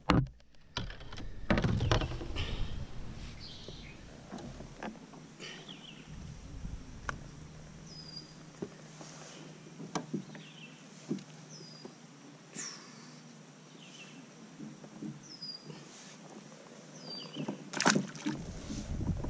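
Scattered knocks and clicks of handling a fish aboard a kayak, then a largemouth bass released over the side hits the water with a splash near the end.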